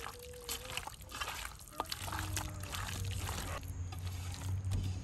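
Water pouring and splashing in short spells, then a steady low hum from about two seconds in.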